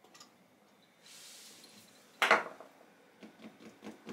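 Bare desktop PC board being started by bridging its power-switch pins with a screwdriver: a rush of fan noise about a second in, then a sharp knock, the loudest sound, followed by a run of light clicks.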